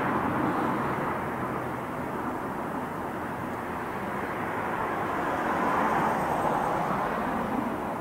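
Traffic noise: a steady rush of passing vehicles that swells about six seconds in and then fades.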